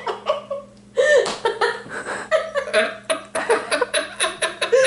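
A man laughing hard in repeated short bursts with quick breaths between, starting about a second in after a brief lull.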